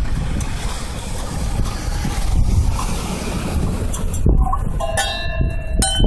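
Nissan Skyline HCR32's straight-six exhaust rumbling at idle, heard close at the muffler tailpipe. From about two-thirds of the way in, a metal silencer insert scrapes and rings against the pipe as it is fitted into the muffler tip.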